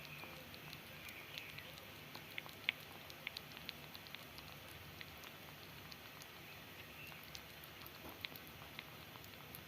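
Kitten eating: faint, irregular small clicks of chewing and mouthing food, the loudest about a third of the way in.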